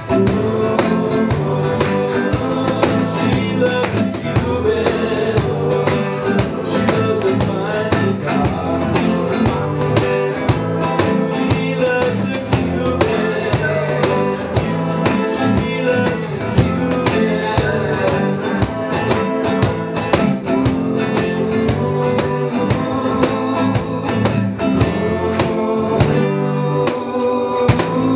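Live acoustic band music: two acoustic guitars strummed over a steady cajón beat. The playing thins out a little near the end.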